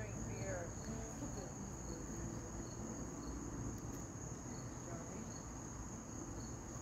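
Steady high-pitched insect trill, with faint short chirps repeating about every two-thirds of a second.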